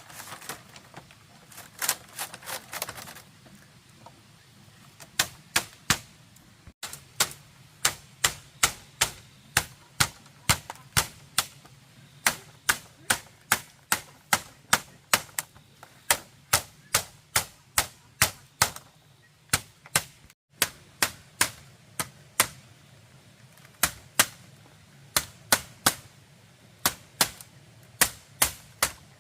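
Repeated sharp strikes of a tool on bamboo, about two a second in a steady rhythm, after a few irregular knocks and a brief rustle near the start.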